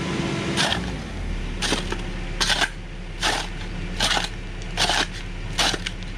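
A steel pick striking bedrock by hand, about seven sharp, ringing hits at roughly one a second, as the rock floor of an excavation is chipped away.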